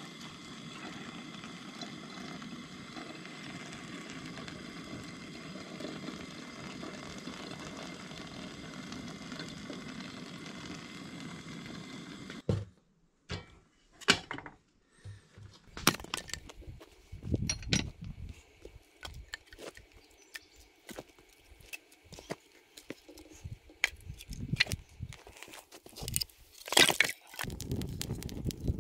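Hot water poured from an enamel pot into a pour-over coffee filter on a camp stove, a steady rushing hiss for about twelve seconds. It then gives way to scattered clinks and knocks of metal pots being handled on the stove grate.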